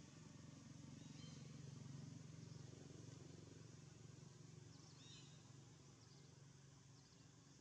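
Near silence: faint outdoor ambience with a steady low rumble and a few faint, short high chirps about one second in and again about five seconds in.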